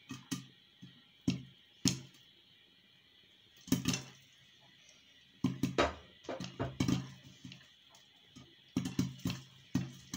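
Popcorn kernels popping irregularly inside a pan covered with a glass lid: sharp pops with a dull knock, now single, now in quick clusters.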